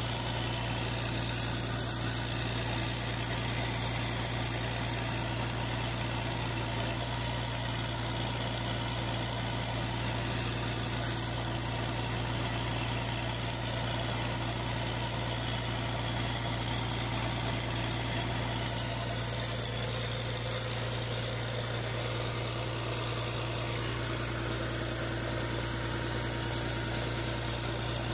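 Freshly overhauled Volvo D7E inline six-cylinder diesel engine of a wheel loader idling steadily.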